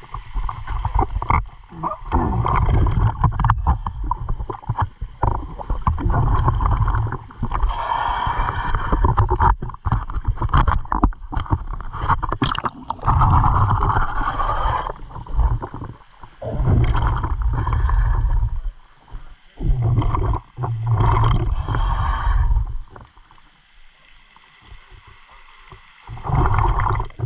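Water sloshing and splashing against a camera held at the surface, turning to muffled gurgling when it dips under. It comes in uneven surges with scattered clicks and eases off for a few seconds near the end.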